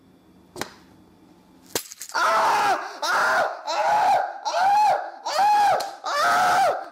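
A sharp snap, the thumbtack-studded mousetrap springing shut, a little under two seconds in, then a man yelling out in pain again and again in short loud cries.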